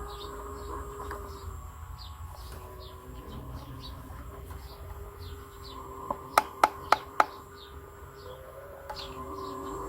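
Small birds chirping over and over in short falling chirps, with a quick run of five sharp clicks or taps a little past the middle.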